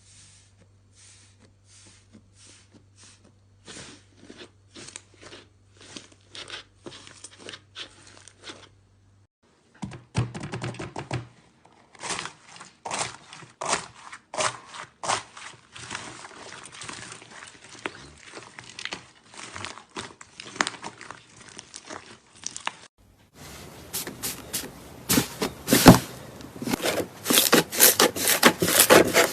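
Slime being squeezed and worked by hand, giving rapid trains of small crackles and pops. It comes in three takes split by sudden breaks about nine and twenty-three seconds in, and the last take is the loudest and densest.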